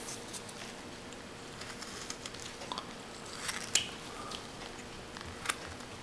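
Carving knife slicing into a small block of wood in hand whittling: a few short, crisp snicks of the blade cutting out chips, spaced irregularly.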